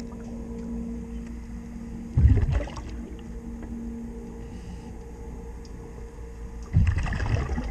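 Underwater sound: a steady low hum, broken twice by a loud rush of a scuba diver's exhaled regulator bubbles, about two seconds in and again near the end.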